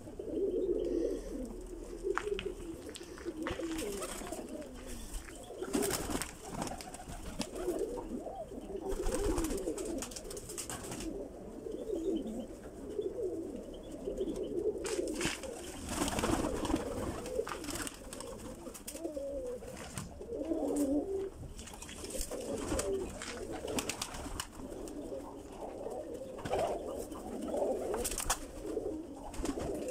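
Several domestic pigeons cooing continuously in low, rolling warbles, with sharp wing flaps now and then.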